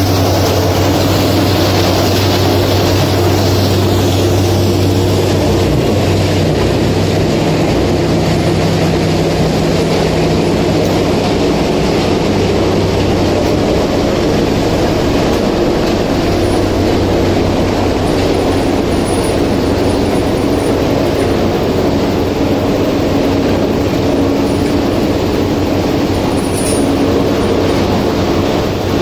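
Loud, steady industrial machinery noise: motors and engines running together with a low hum that shifts about six seconds in.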